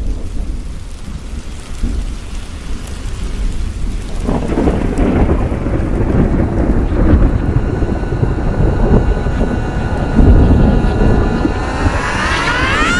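Steady rain with a long roll of thunder that builds from about four seconds in. Near the end a cluster of rising tones swells up.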